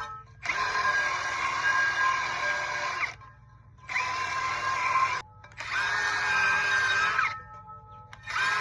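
Power tool spinning a wire wheel against a steel trailer rim, scrubbing corrosion off the bead seat. It runs in three separate bursts with short pauses between, each spinning up to a steady whine over a gritty scraping, and starts a fourth time near the end.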